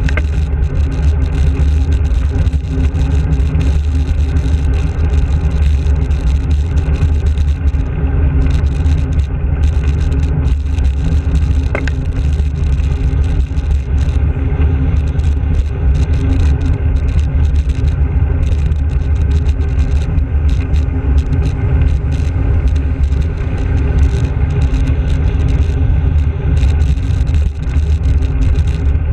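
Wind rushing over a handlebar-mounted GoPro Hero's microphone as a bicycle rides along a road, a steady heavy low rumble mixed with tyre noise on the tarmac.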